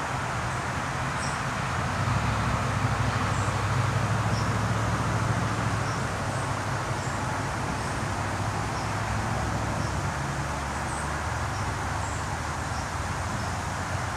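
A steady low, motor-like hum from a distant engine, swelling for a few seconds about two seconds in. Faint, short high chirps are scattered through it.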